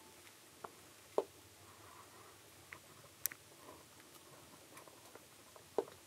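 Quiet background with a handful of short, sharp clicks and snaps at irregular intervals, one of them brighter and crisper than the rest about three seconds in.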